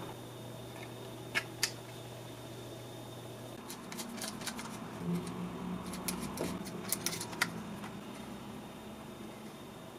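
Small precision screwdriver turning tiny screws into a 3D-printed plastic cap on an acrylic tube: a run of light clicks and scrapes, from about four seconds in to about seven and a half. Two sharper clicks come a little over a second in.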